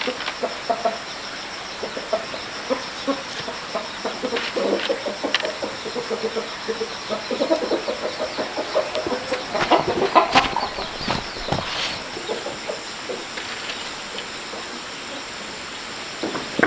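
Chickens clucking, a string of short calls that grows busier in the middle, over a steady high hiss.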